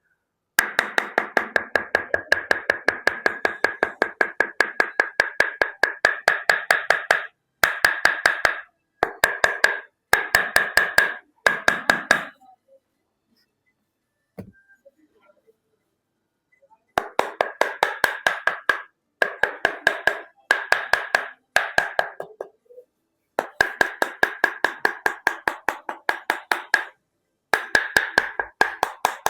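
Fast, even percussive strikes of hands on the body, several a second, in runs of a few seconds with short breaks and one longer pause about halfway.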